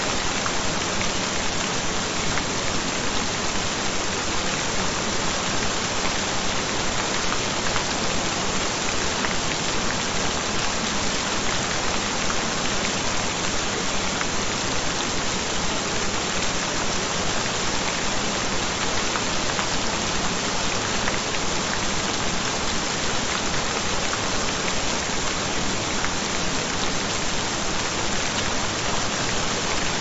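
Steady rain falling, an even, unbroken hiss with no changes.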